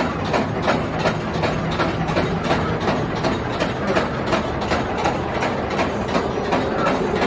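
Calico Mine Train ride cars rolling along their track through the mine tunnel, wheels clacking over rail joints about three times a second over a steady rumble.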